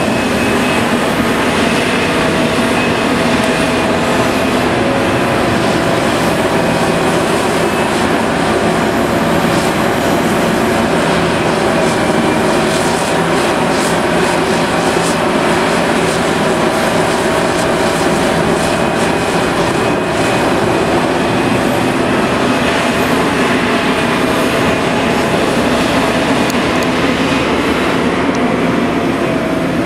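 Liebherr R 974 B hydraulic excavator at work: its diesel engine and hydraulics run loud and steady with a constant drone and whine, and some light metallic clanking in the middle.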